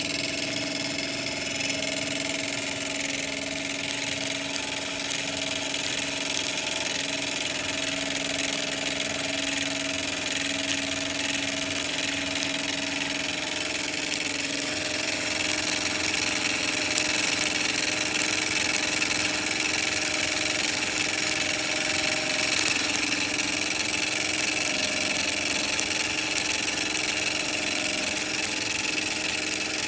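Microcosm M89 miniature brass steam engine and boiler running steadily, with a steady hiss of steam that grows a little louder about halfway through.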